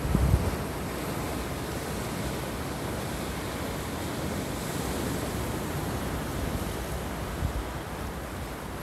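Sea surf breaking against boulders and washing over a pebble beach, a steady rushing wash. Gusts of wind buffet the microphone briefly at the start.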